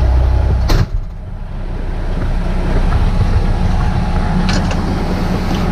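Heavy vehicle engine idling with a steady low hum, broken by a sharp thump a little under a second in, after which the engine sound drops and slowly builds back up.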